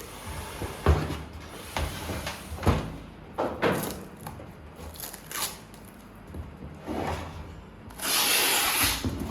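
Parts of a DVR rack being handled and fitted together: a series of knocks and short scrapes about once a second, then a longer rasping scrape about eight seconds in.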